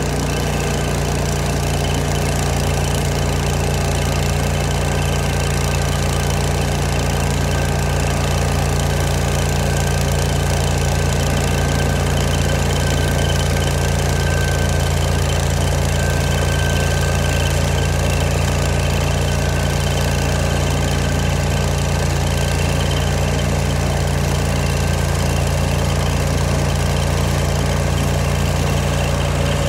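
Old Vermeer stump grinder's engine running at a steady, unchanging speed.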